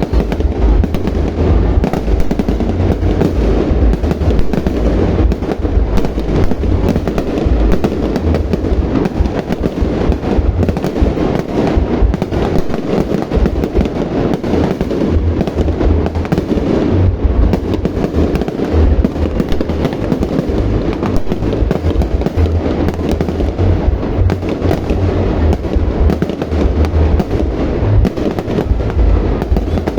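Fireworks display: a continuous barrage of aerial shell bursts, booms packed close together and overlapping with a heavy low rumble and no break.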